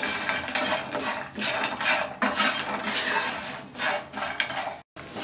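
A spoon scraping and stirring fried colocasia pieces around a nonstick frying pan, in quick repeated strokes about two or three a second, cut by a brief gap near the end.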